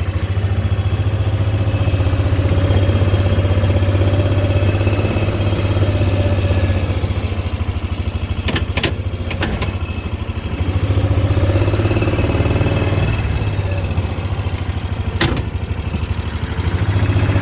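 Engine of a slow-moving vehicle running steadily at low revs, its drone swelling and easing a little as it goes. A few sharp clicks sound around the middle and once more near the end.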